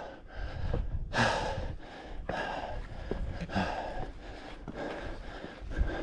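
A man breathing hard, with heavy rhythmic breaths about once a second, from the exertion of hiking uphill under a loaded backpack.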